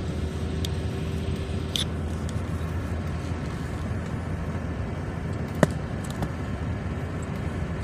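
Truck driving, a steady low rumble of engine and road noise heard from inside the cab, with one sharp click about two-thirds of the way in.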